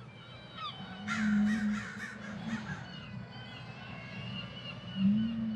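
Crows cawing, a quick run of about four harsh caws a second or so in, with faint higher bird chirps. A low hum sounds under the caws and swells again near the end.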